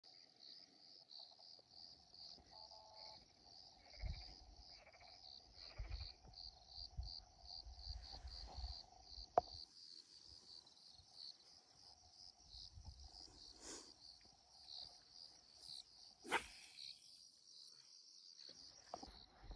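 Faint, steady chirping of crickets in a rapid pulsing rhythm, with scattered low thumps and a sharp click about halfway through and another near the end.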